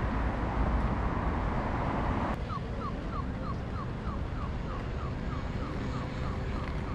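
Street traffic passing, which drops away suddenly about two seconds in, leaving a steady run of short rising electronic chirps, about three a second: the audible signal of a pedestrian crossing.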